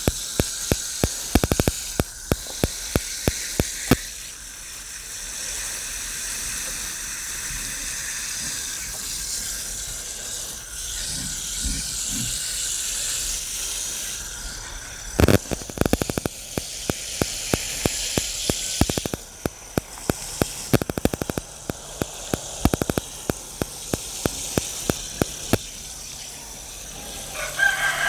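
Rapid clusters of sharp clicks over a steady hiss: interference from a faulty new microphone. A rooster starts crowing near the end.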